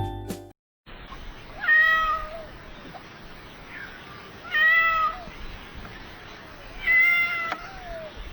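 A cat meows three times, each a short call about two and a half to three seconds apart. Jingle-like music cuts off about half a second in.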